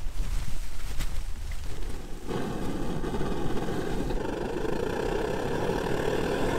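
Liquid-fuel backpacking stove fed from a pressurised fuel bottle: a low flutter from the yellow priming flame, then about two seconds in the burner catches and runs with a steady loud rush as the flame turns blue, the sign that priming is done and the stove is at full burn.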